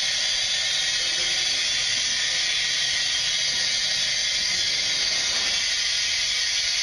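Helium streaming from a K-size cylinder through the fill tube into a latex high-altitude balloon: a steady hiss of gas flow.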